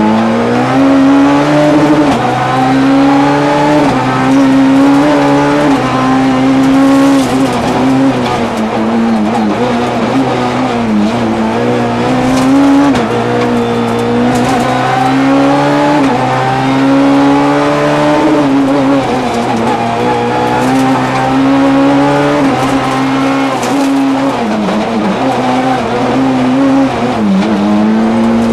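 Peugeot 206 S1600 rally car's 1.6-litre four-cylinder engine heard from inside the cabin, revving up and dropping back again and again as the car is driven hard through bends. A few sharp cracks cut through it now and then.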